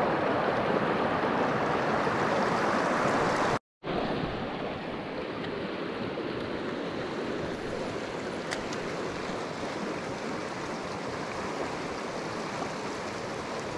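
Shallow mountain river running over rocks, a steady rush of water. It is louder and closer for the first few seconds, then after a brief break a softer, even flow, with one small click partway through.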